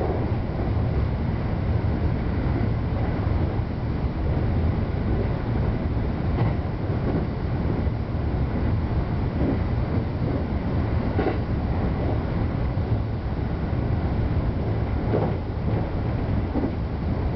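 JR West 321 series electric commuter train running along the line, heard from just behind the cab: a steady low rumble of wheels on rail, broken by a few sharper clacks.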